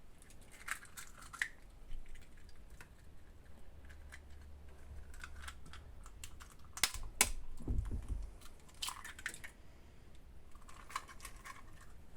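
Eggs being cracked by hand: a few sharp taps and the crackle of shells breaking apart, spread out with quieter stretches between.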